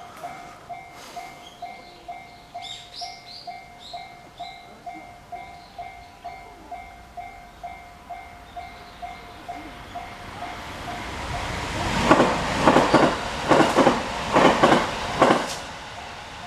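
Japanese railway level-crossing alarm bell dinging steadily about twice a second. About ten seconds in, a train approaches and passes over the crossing, its wheels clattering over the rail joints in quick sharp knocks for a few seconds.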